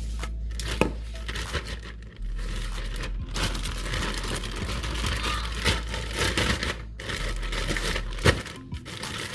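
Seasoned raw fajita meat being mixed by hand or utensil in its container, a wet rustling and crinkling with a few sharp knocks. It gets denser from about three seconds in.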